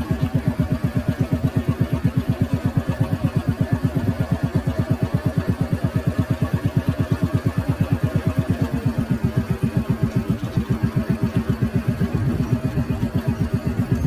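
Small engine running at a steady pace, with an even low throb of about seven beats a second.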